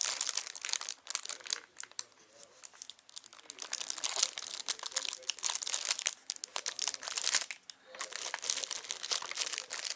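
Walkie-talkie packaging crinkling and rustling as it is opened and handled, in dense crackly bursts with a quieter pause about two seconds in.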